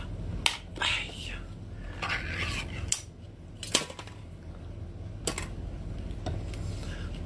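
Ring-pull tin can being opened by hand: metallic scraping as the tab is lifted and the lid peeled back, with several sharp clicks of metal.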